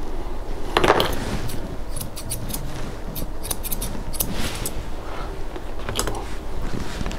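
Grooming shears snipping repeatedly through a bichon frise's face hair, a quick run of short, crisp cuts with pauses between, and a louder rustle about a second in and again near six seconds.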